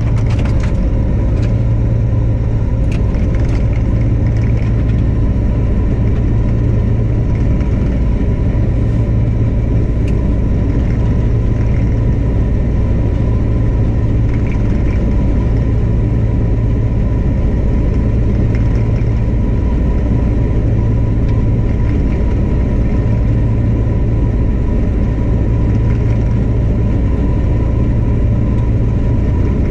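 Claas Tucano 470 combine harvester running steadily while unloading grain through its unloading auger: a loud, even low drone with a constant higher whine, and a few light clicks near the start.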